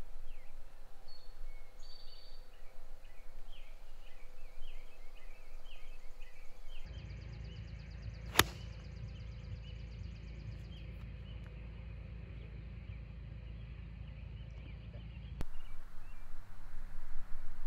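Birds chirping, then a single crisp click of a golf iron striking the ball on a full swing about eight seconds in, over a low steady rumble. Birds chirp again near the end.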